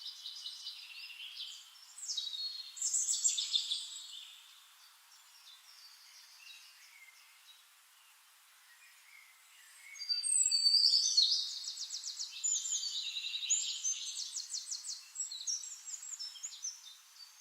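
Songbirds singing: quick high chirps, glides and fast trills, loudest about two to four seconds in and again from about ten seconds in, with a quieter stretch between.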